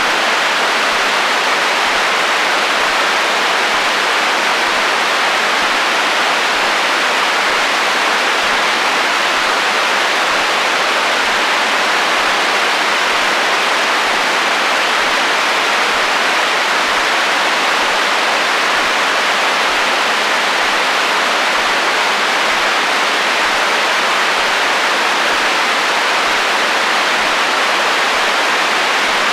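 Radio static: a receiver's steady hiss of interference noise on the HF band, strongest in the middle and upper range with little bass, unchanging throughout.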